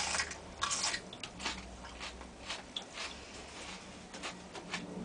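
Biting into a thick-fleshed, juicy Monkey Face chilli pod and chewing it. There is a sharp bite at the start and another just under a second in, then a run of small irregular chewing clicks.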